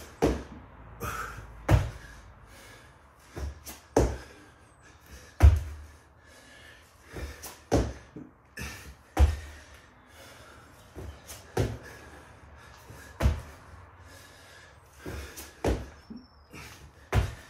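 Thuds of a person doing burpees on an exercise mat over a hard floor: a loud thud about every one and a half to two seconds, with lighter knocks between.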